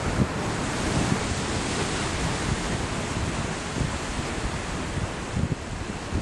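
Steady wash of sea waves, with wind buffeting the microphone in irregular low rumbles.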